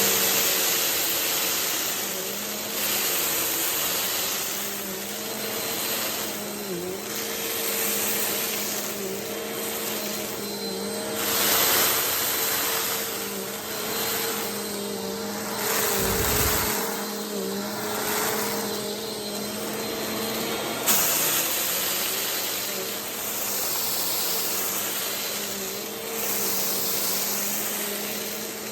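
Vacuum cleaner running steadily with a motor hum, its airflow swelling and fading as it is pushed back and forth over a rug picking up spilled rice. There is one sharp click about three-quarters of the way through.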